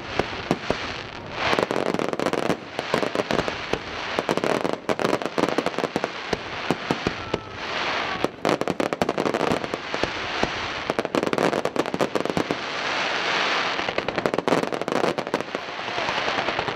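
Fireworks display: a dense, unbroken run of sharp bangs and crackling from aerial shells bursting one after another.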